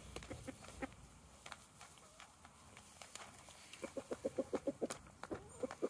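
Flock of hens feeding from a dish on grass: scattered short pecks and clucks, with a quick run of them about four seconds in.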